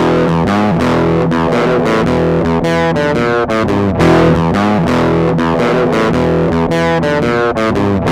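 Outro music: loud rock with distorted electric guitar and bass, in a steady rhythm, cutting off abruptly at the end.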